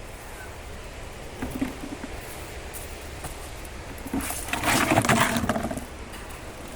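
Soil and potatoes being handled while harvesting a container of potatoes: a brief loud rustling, scraping burst about four seconds in, over a low steady rumble.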